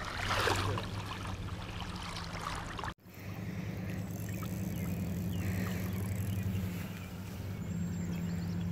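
Creek water sloshing and splashing close to the microphone as a brown trout is brought to the net, with a brief noisy splash in the first second. A steady low rumble runs underneath, broken by a short dropout about three seconds in.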